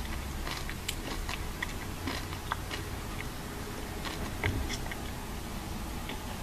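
A person chewing chili nut M&M's close to the microphone: scattered small crunches and mouth clicks over a steady low hum.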